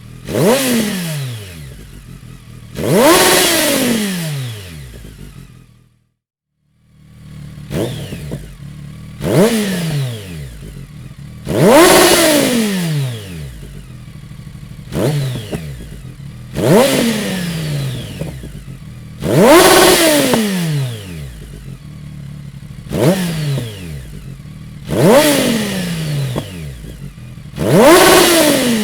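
BMW K1200R's inline-four engine, fitted with an aftermarket Dominator exhaust silencer, revved in a string of about eleven sharp throttle blips. Each rev shoots up and falls back to idle in a falling whine, and the sound cuts out for a second about six seconds in.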